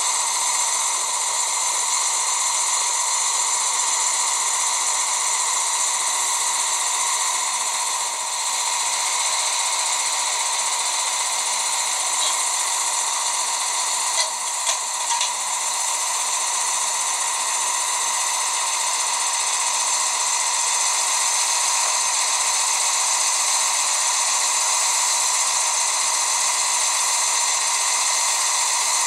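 A steady high hiss, with a few brief clicks about halfway through.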